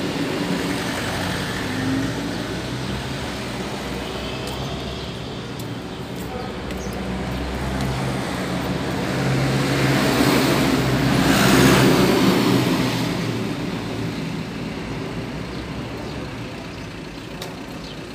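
Street traffic: engines of passing cars and trucks running, with one vehicle passing close about ten to twelve seconds in, swelling and then fading away.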